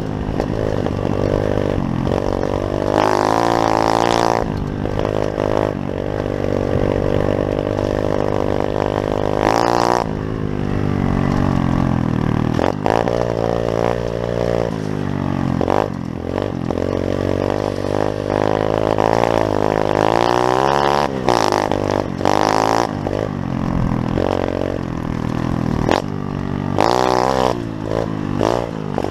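Pit bike engine running while being ridden, its pitch rising and falling again and again as the throttle is opened and shut.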